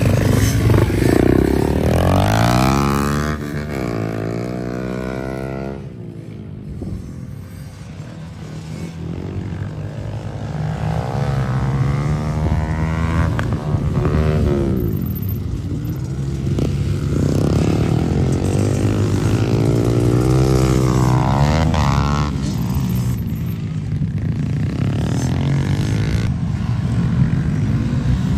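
Dirt bike engines revving hard, the pitch repeatedly climbing and dropping as the bikes accelerate and shift. It eases off for a couple of seconds about six seconds in, then picks up again.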